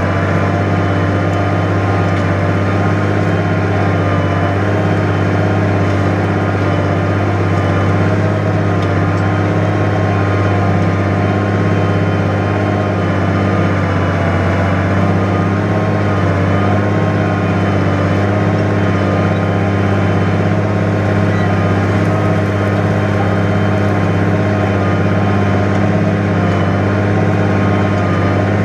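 New Holland 100-90 tractor engine running steadily under load while ploughing heavy, wet ground, with a constant low drone and no change in pace.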